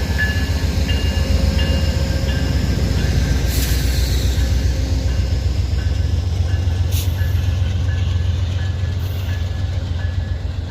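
Amtrak diesel locomotive 107, a GE P42DC, passing with its train: a loud, steady low diesel and rail rumble with a repeating high ding about twice a second, two sharp clacks a few seconds apart, and the sound easing off near the end as the train moves away.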